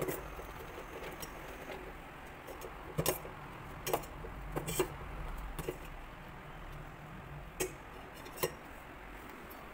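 Thick pearl millet porridge bubbling in a steel pot while a steel spoon stirs it: about eight sharp clinks and pops scattered over a steady low hiss.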